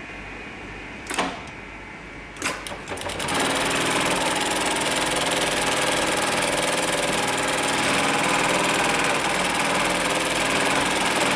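HIGHTEX MLK500-2516 programmable pattern sewing machine with a direct-drive motor. A low hum, a sharp click about a second in and a few knocks around two and a half seconds, then from about three seconds in the machine sews at a steady high speed.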